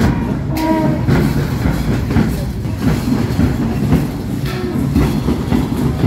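Marching band drums beating as a street parade passes, with a dense, uneven rumble of crowd and street noise under them.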